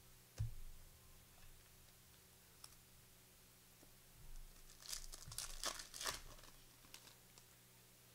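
Foil trading-card pack wrappers being handled and torn open, crinkling in a cluster of strokes about five to six seconds in, after a single soft thump near the start.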